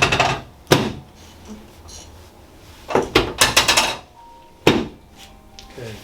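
Sharp clicks and knocks from a chiropractic adjustment: single ones at the start and about a second in, a quick run of them a few seconds in, and another single sharp knock shortly after.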